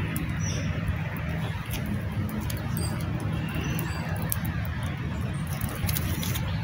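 Small campfire of burning twigs crackling with scattered sharp pops, over a steady low rumble, with a few short bird chirps.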